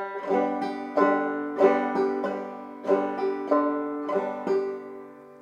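Five-string banjo in standard open G tuning played clawhammer (frailing) style: the basic frailing strum picking the open third and fourth strings in turn in a steady rhythm. The notes ring on and die away near the end.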